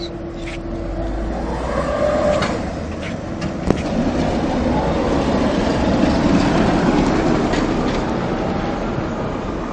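Tram passing close by, its wheels rumbling over the rails and swelling to their loudest past the middle, then easing off. A single sharp knock comes a little over three and a half seconds in.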